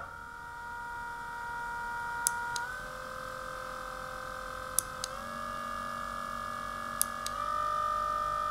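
Massage gun's DC motor, out of its housing, running with a steady whine that steps up in pitch three times as its speed button is pressed, with a pair of button clicks just before each step. It spins at all speeds and sounds really good, so the motor is not the fault.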